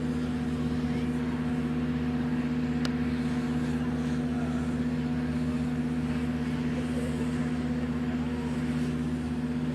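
Steady low machine hum holding several constant pitches, with no change in level.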